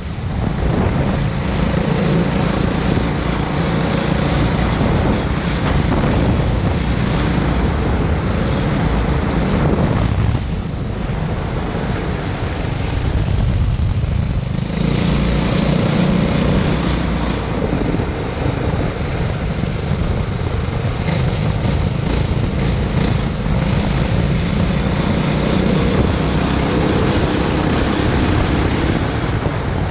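Two Tillotson single-cylinder go-kart engines driving through torque converters, running under throttle as the kart is driven. About ten seconds in the sound drops for around four seconds, then picks up again.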